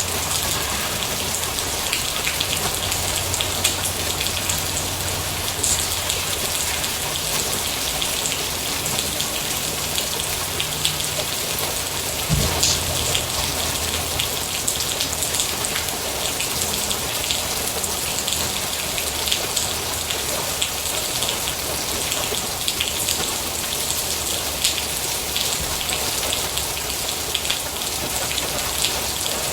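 Steady rain falling, with many individual drops ticking on a surface over the even hiss. There is one louder thump about midway.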